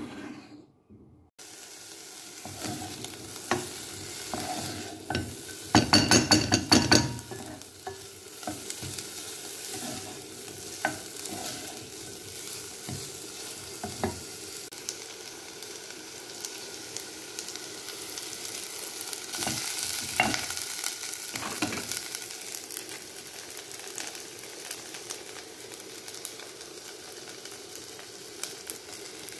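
Chopped onion sizzling in hot oil in a nonstick pan, starting about a second in, while a wooden spoon stirs it with scattered knocks against the pan. About six seconds in comes a loud second or so of fast, rapid clattering.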